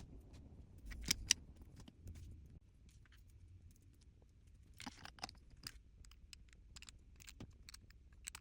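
Faint handling of a small plastic toy and its packaging: scattered light clicks and crinkles, with two sharper clicks about a second in and a brief rustle about five seconds in.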